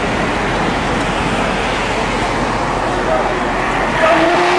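Car and highway traffic noise, a steady rushing sound, with voices calling out near the end.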